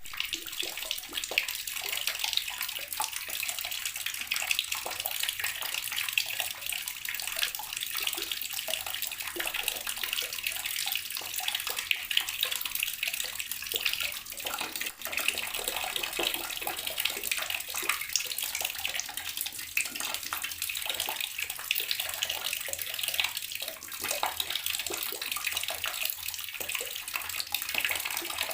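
Water running from a tap, splashing steadily into a basin or tub below.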